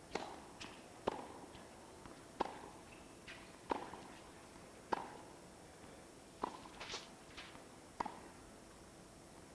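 Tennis ball struck back and forth by racquets in a baseline rally: about seven sharp hits, roughly one every second and a half, with fainter ball bounces and court sounds between them.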